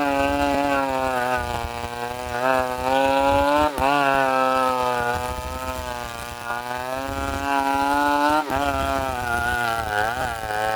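Two-stroke chainsaw running at high revs while cutting timber, its pitch wavering and dipping briefly a few times as the chain takes load.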